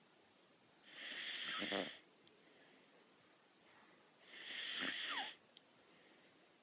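Whippet puppy snoring through its nose: two hissy snores about a second long, some three seconds apart, the second ending in a brief falling whistle.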